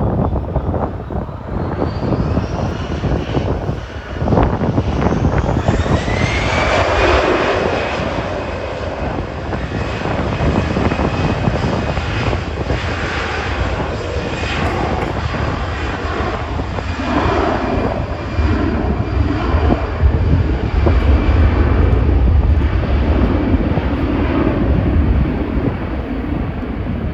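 Jet airliner's engines running loud, with a whine that rises in pitch about two to six seconds in and then holds steady over a continuous rumble.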